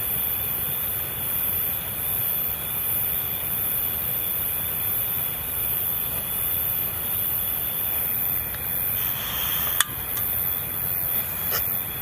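Steady rush of a river with a continuous high chorus of crickets chirping over it. A single sharp click comes a little before ten seconds in.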